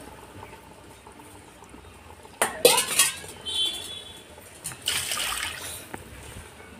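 Metal slotted spoon knocking against a large metal pot and stirring thin curry gravy: a few sharp clanks about two and a half seconds in with a brief ringing tone, then a scraping stir through the liquid around five seconds in.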